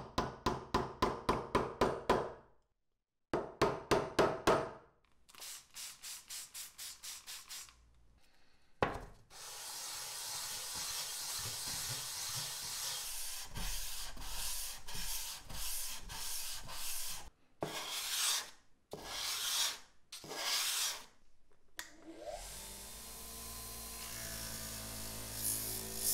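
A small hammer tapping push pins in quick runs of light, ringing taps, pinning waterproof sandpaper to a board. Then a steel hatchet head is rubbed back and forth on the wet sandpaper in long sanding strokes. Near the end a bench buffing-wheel motor spins up with a rising whine and runs with a steady hum.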